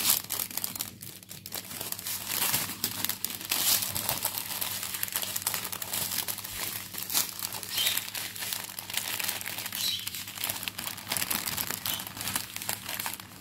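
Plastic packaging of a diamond painting kit crinkling and rustling as it is handled, a steady run of irregular crackles.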